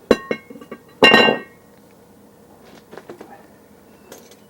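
Metal clanking as a rear brake disc is taken off the hub. There are a few sharp knocks, then a loud ringing clang about a second in, and lighter knocks later.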